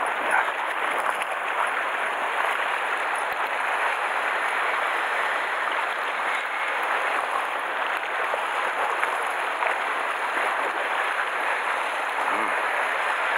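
Sea surf washing against shoreline rocks, a steady hiss of moving water.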